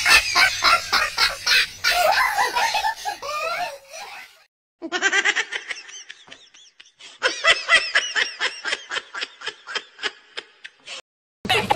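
Dubbed human laughter in rapid, pulsing ha-ha runs. One laugh goes for about four seconds and breaks off. After a brief silence a second, fast run of high laughter pulses follows, and it stops shortly before the end.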